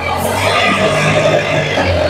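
Tractor diesel engine running steadily with a low hum, with music and voices mixed in.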